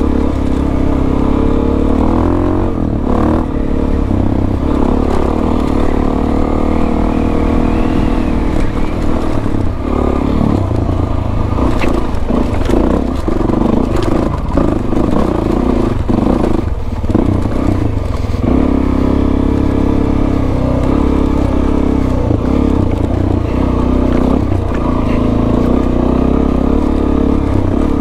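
Suzuki DR-Z400S single-cylinder four-stroke engine running under load off-road, its pitch rising and falling with the throttle. Knocks and clatter from the bike bouncing over rough, bumpy dirt come thickest in the middle.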